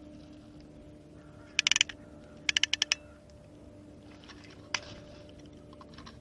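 Two quick runs of sharp clicks about a second apart, the first of about four and the second of about six, then a single click, over a faint steady hum.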